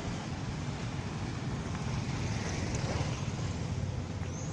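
Steady hum of a small motorbike engine under way, with road and wind noise as it rides along.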